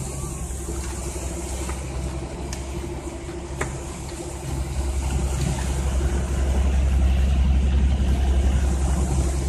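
An engine running with a steady low rumble and hum, getting louder about halfway through.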